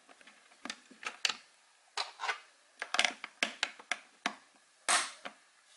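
Small plastic access cover over a BMW i8's hood-release pull cord being handled and pressed back into its opening in the door jamb: a string of irregular plastic clicks and taps, with a louder, longer one about five seconds in.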